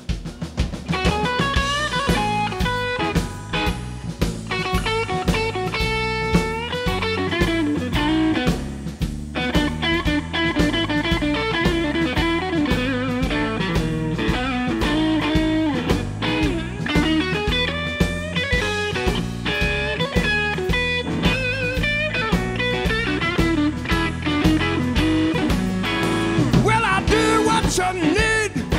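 Live blues band playing an instrumental intro: electric guitar lead lines over bass and drum kit at a steady shuffle.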